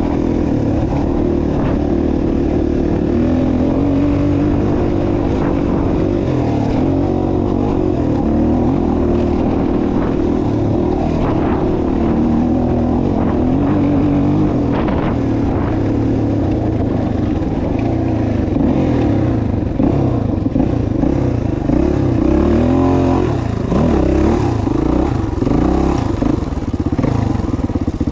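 A motor vehicle's engine running continuously, its pitch rising and falling again and again as the throttle is opened and eased off.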